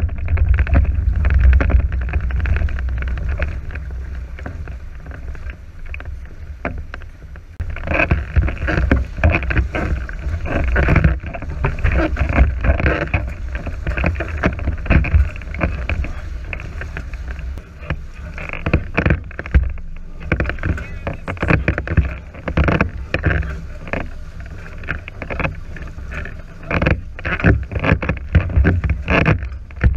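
Sailing catamaran under way: wind rumbling on the microphone, heaviest in the first few seconds, with water splashing and slapping against the hulls in irregular strokes from about eight seconds in.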